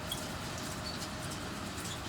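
Tractor and square baler running at a distance, a steady faint drone under an even rushing noise, with a few short high chirps.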